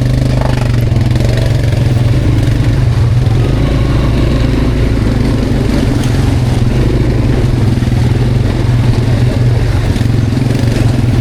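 Quad bike (ATV) engine running steadily as it is ridden, a constant low engine drone with no big changes in revs.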